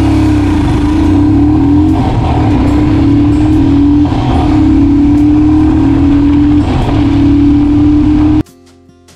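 Royal Enfield Himalayan's 411 cc single-cylinder engine accelerating hard through the gears on the stock fuel mixture, without a Booster Plug. Its pitch climbs in each gear and drops back at each upshift, and the sound cuts off suddenly near the end.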